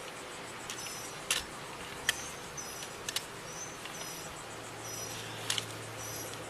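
Quiet outdoor ambience with scattered short, high bird chirps and a few sharp clicks; a low steady hum comes in a little past the middle.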